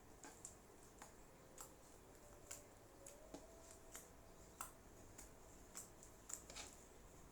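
Faint sticky clicks and pops of homemade clay slime being kneaded and pulled by hand, about one to two a second; the slime is still tacky and sticks to the fingers.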